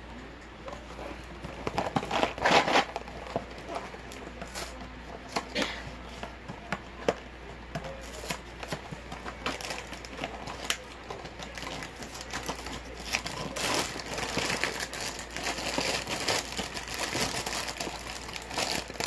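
Plastic inner bag of a cereal box crinkling and rustling as it is handled and opened, with scattered clicks and taps. The crinkling is loudest about two seconds in and again in a longer stretch near the end.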